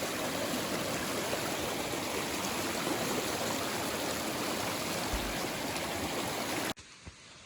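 Mountain stream rushing steadily, a full even wash of running water that cuts off abruptly near the end.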